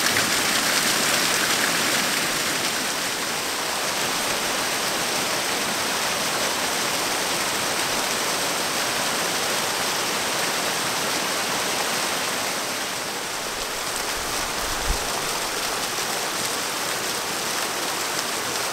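Small hot-spring waterfall pouring down a rock face and splashing steadily into a shallow pool, a little louder in the first couple of seconds.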